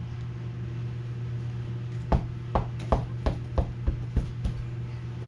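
A steady low hum. Starting about two seconds in, a run of about ten sharp knocks comes closer and closer together and grows fainter.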